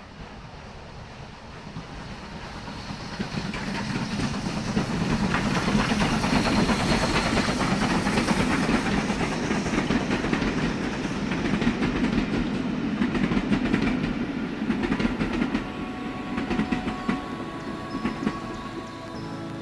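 A train passing, its rumble and wheel clatter building up over several seconds and then fading away. Background music comes in near the end.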